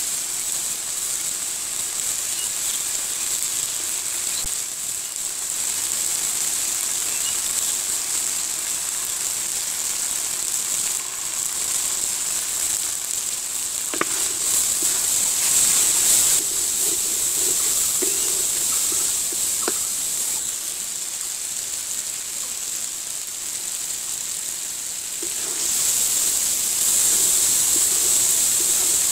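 Chopped onions sizzling in hot oil in a large metal wok-like pan. From about halfway, a wooden spatula scrapes and knocks against the pan as spices are stirred in, with a couple of sharp clicks.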